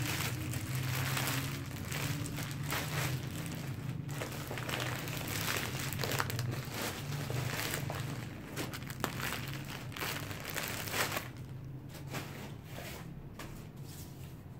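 Thin clear plastic bag crinkling and rustling as it is handled and pulled off a jacket, dying down about eleven seconds in, over a steady low hum.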